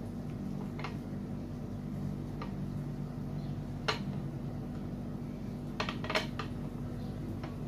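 A few short, light clinks and taps of glass tumblers and a plate being handled while banana slices are pressed into the glasses, over a steady low hum.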